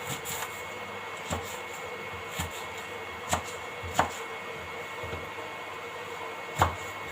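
Scattered light knocks and clicks of kitchen items being handled while spices go into a pot of tea, about six in all, the loudest near the end.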